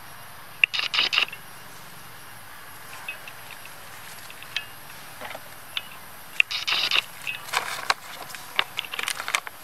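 Dry leaf litter and twigs rustling and crackling in short bursts, with scattered sharp snaps, a few times in the second half.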